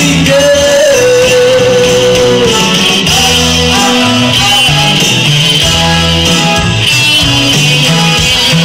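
Live dance band playing: electric guitar, bass, keyboards and drums, with a male singer over the band.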